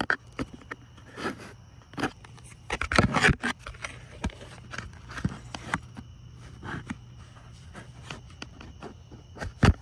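Irregular scrapes and short knocks, busiest about three seconds in, over a low steady hum.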